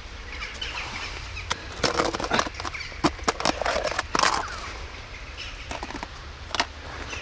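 A snap-on plastic food container being handled, its lid pried off and the tub set down on crusted snow: a burst of sharp plastic clicks and rustles from about two to four and a half seconds in, with a few more clicks near the end.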